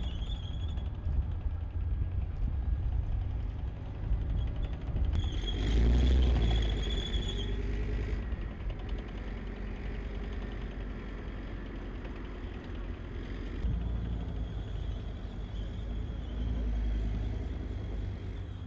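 Tracked armoured vehicle driving on a concrete quay: deep engine rumble with a high squeal from the running gear, loudest as it passes close about six seconds in and swelling again later.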